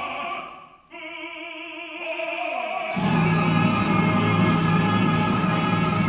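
Live operatic duet for baritone and bass with orchestra at its closing climax. The music drops away for a moment, then comes back as a held chord with one part sliding upward. About three seconds in, the full orchestra and the voices come in loud, with percussion strokes at a steady beat.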